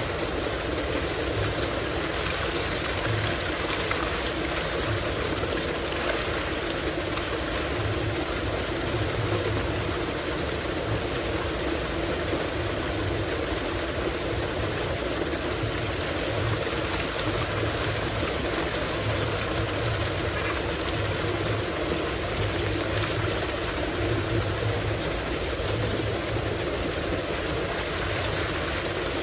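Tubewell water gushing steadily from a large outlet pipe into a concrete tank.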